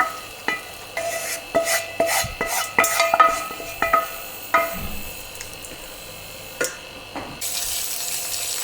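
A metal utensil clinking and scraping against a metal cooking pan as fried chicken pieces are moved into the pot, with about a dozen sharp, ringing clinks over the first four and a half seconds and one more later. Near the end a steady hiss of frying starts up.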